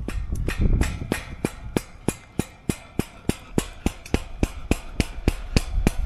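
Hammer blows in a quick, even run, about three a second, with wind rumbling on the microphone at the start and end.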